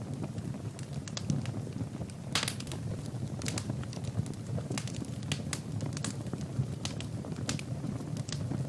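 Fire burning in a fireplace, crackling and popping at irregular intervals over a steady low rumble of the flames.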